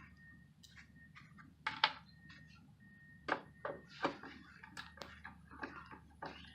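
Scattered light clicks, clacks and knocks of small hard items being handled and set down in a small room, with a few sharper clacks about two, three and four seconds in.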